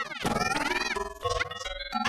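Children's-show intro jingle run through electronic audio effects, its pitches bending and sweeping up and down in a warped, wobbling way.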